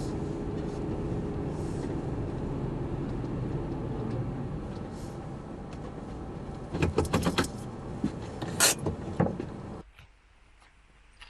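Car engine running steadily, then easing off as the car comes to a stop. A cluster of sharp clicks and clunks follows, then the engine shuts off abruptly near the end.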